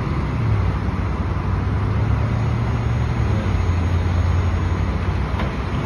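Flatbed tow truck's engine running with a steady low drone, its pitch dropping slightly about three seconds in, as the truck is set up to winch a Ford F-150 onto its tilted bed.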